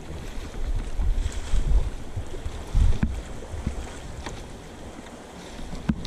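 River water rushing past an inflatable raft, with gusty wind rumbling on the camera's microphone and a few short knocks and splashes from the crew's paddle strokes.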